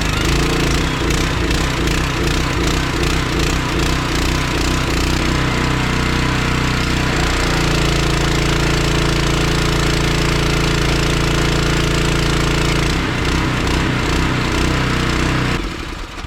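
Petrol engine of a pressure washer running steadily, test-run after a repair to its suspected carburetor fault. Its note shifts and settles about halfway through and wavers again near the end.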